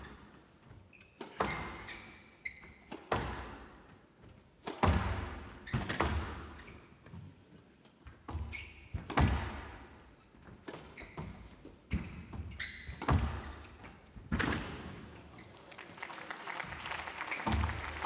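Squash rally: a squash ball struck by rackets and smacking off the front wall and glass walls in irregular sharp hits about a second apart, each with a short echo, with a few brief shoe squeaks on the court floor.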